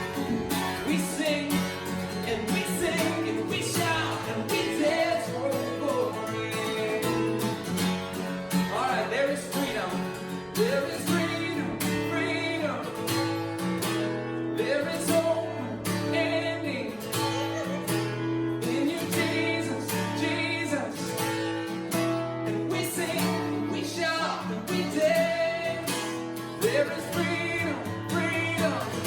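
Upbeat worship song: singing over a band with guitar and a steady beat.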